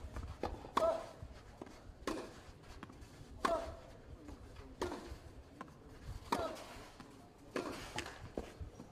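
A tennis ball bounced repeatedly on a clay court, a sharp thud with a short ring about every second and a half, around seven times.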